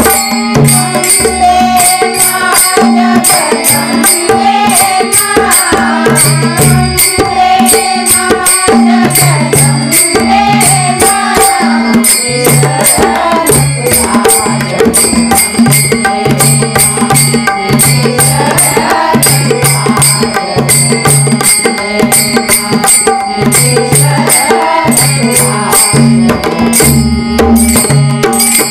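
Women singing a Marathi devotional bhajan together, over a hand drum and a fast, steady jingling beat of small hand-held percussion.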